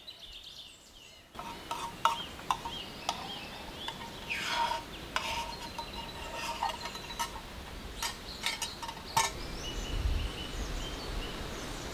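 Metal spoon and steel canteen cup clinking and scraping in a scatter of sharp taps, with small birds chirping in the background.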